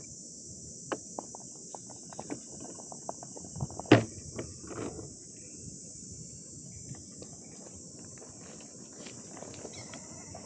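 Steady high-pitched insect chorus with scattered light clicks and knocks over it, the loudest a sharp knock about four seconds in.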